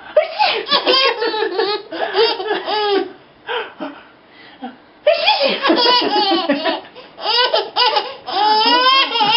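Six-month-old baby belly-laughing in rapid, high-pitched bursts: one bout, a pause of about two seconds, then a second, longer bout.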